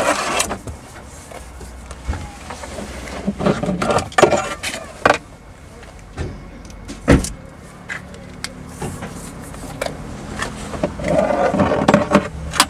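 Close handling noise from a whip radio antenna being fitted and raised: scattered clicks and knocks, the sharpest about seven seconds in, over a low steady hum, with a couple of short muffled voice-like sounds.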